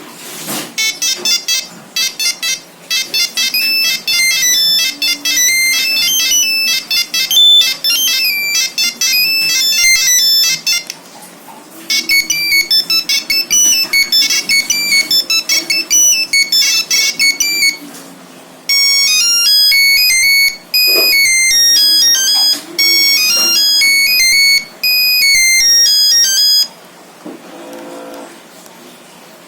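Nokia 3310 playing three of its monophonic ringtones one after another, each a quick melody of high electronic beeping notes, with short pauses between the tunes.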